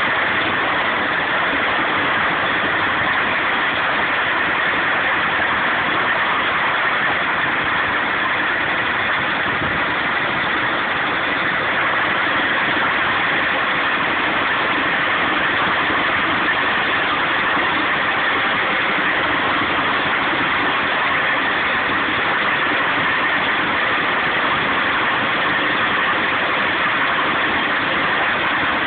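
Old straw chaff cutter converted into a branch chipper, running steadily with an even mechanical noise that holds the same level throughout.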